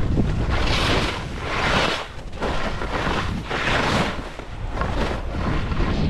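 Skis hissing and scraping across snow on a downhill run, the hiss swelling four times as the skis bite in, over a steady rumble of wind buffeting the microphone.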